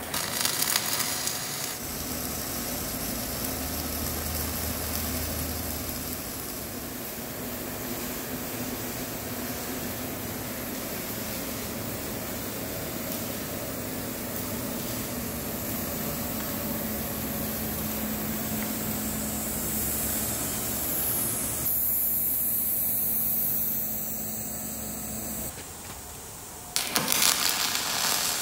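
Wire-feed welding arc laying a weld with dual-shield (gas-shielded flux-cored) wire: a steady hiss and crackle that stops and restarts a few times between passes.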